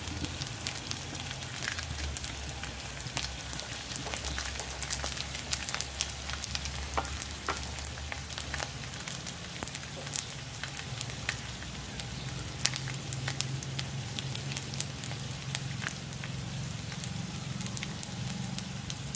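Small dried fish (daing) frying in hot oil in a wok: a steady sizzle with frequent sharp crackling pops. A steady low hum sits underneath.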